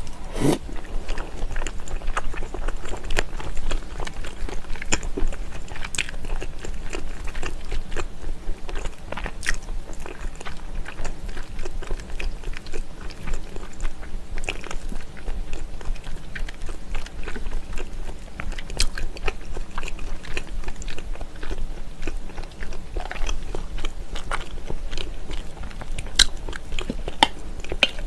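Close-miked chewing of smoked salmon with slices of raw onion: many short wet mouth clicks and small crunches, with no pause.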